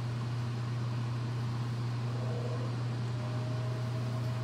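Commercial kitchen ventilation fan running: a steady low hum under an even hiss of moving air.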